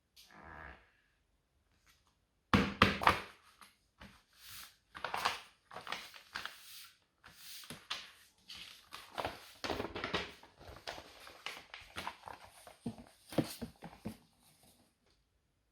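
Packaging of a boxed action figure being handled and opened: irregular rustling, crinkling and knocks, loudest about two and a half seconds in.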